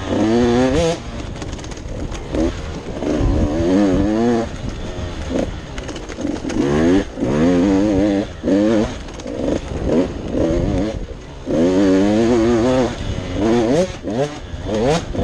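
2023 GasGas 85 two-stroke dirt bike engine revving up and down over and over as the throttle is worked through the trail's turns. The pitch keeps rising and falling, with brief dips where the throttle is closed.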